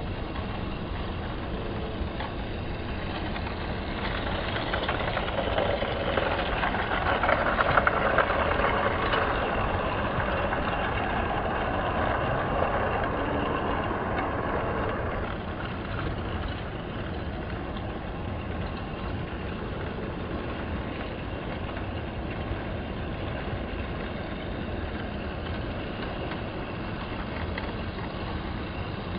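Toy train running with a steady motor hum and rapid clatter. It grows louder for about ten seconds in the middle, as if passing close, then settles back to a steady level.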